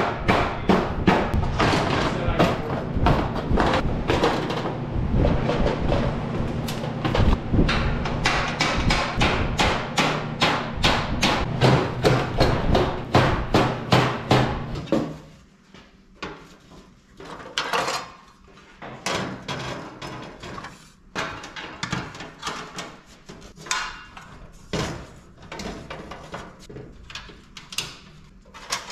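A wooden block knocking against sheet-metal visor panels: rapid, regular strikes for about the first half, then sparser, quieter knocks and handling of the metal.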